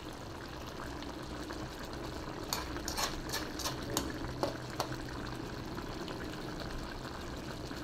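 Coconut-milk sauce simmering and bubbling in a wok, with a metal spoon clicking and scraping against the pan several times from about two and a half seconds in.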